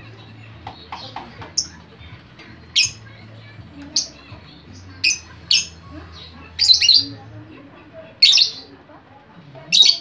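Lovebird calling in short, sharp, high-pitched chirps and squawks, one every second or so. The loudest shrieks come from about two-thirds of the way through to the end.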